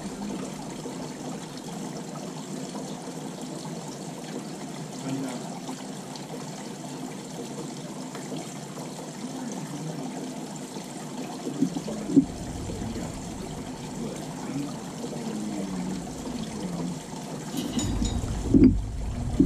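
Water trickling steadily, with a couple of sharp clicks about twelve seconds in and louder knocks and rubbing near the end.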